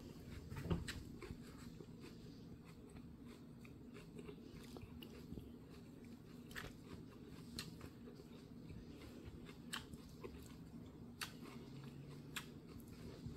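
Faint chewing and crunching of food, with scattered light clicks, over a low steady room hum.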